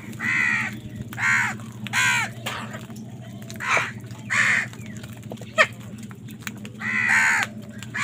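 House crows in a feeding flock cawing, about six loud caws at uneven intervals, with a steady low hum underneath.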